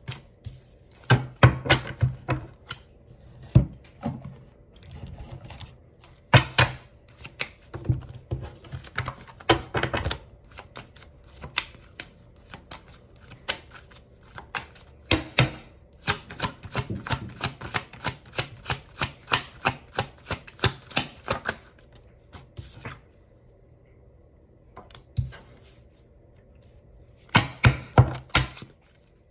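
A deck of tarot-size cards being shuffled by hand: a quick run of card flicks and slaps in spells, with a pause of a few seconds near the end before a last short flurry.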